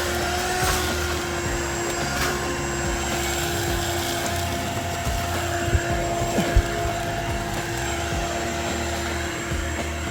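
A steady motor drone with a constant hum and a faint high whine, broken by two short knocks about six seconds in.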